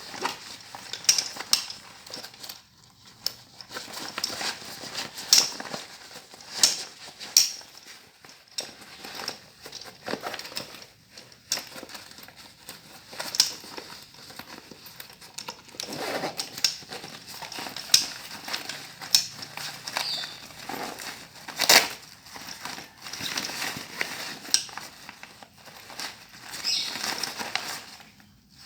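Packaging and bag material being handled while a waist bag is unboxed: irregular crinkling and rustling with many sharp crackles.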